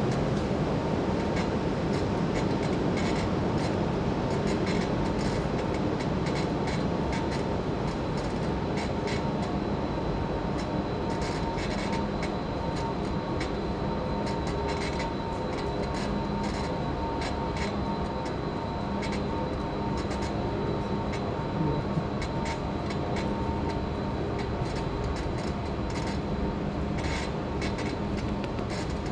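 Steady rumble and hum of a vehicle driving slowly through a rock tunnel, with scattered light clicks and rattles.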